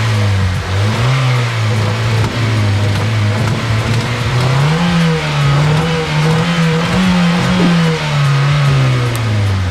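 Honda Civic four-cylinder engine revved with the throttle: it runs, climbs in pitch about halfway through, holds, then drops back near the end. The engine is running rough and skipping with the check engine light on, which the owner thinks could be a sensor or a sticking throttle body.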